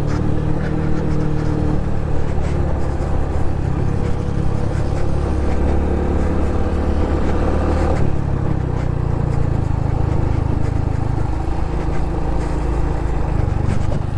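Honda Pop 110i's small single-cylinder engine running steadily as the motorcycle is ridden, under heavy wind rumble on the microphone.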